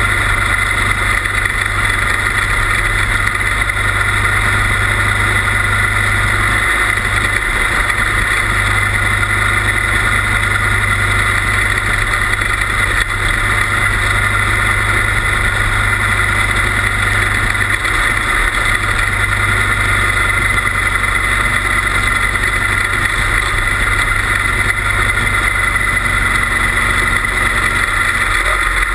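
A quarter midget race car's small single-cylinder engine running steadily at speed, heard from on board the car.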